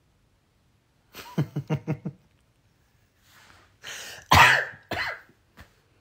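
A man coughing and clearing his throat: a quick run of short pulses about a second in, then a louder, sharper cough about four seconds in, with smaller coughs after it.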